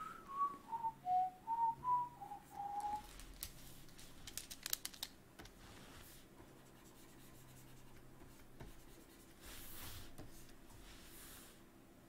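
A person whistling a short tune of about seven notes, mostly stepping down in pitch, over the first three seconds. A few faint clicks follow.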